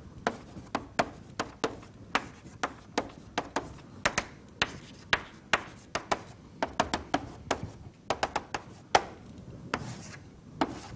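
Chalk writing on a blackboard: a quick run of sharp chalk taps and short strokes, several a second, with a longer scrape near the end as a tall bracket is drawn.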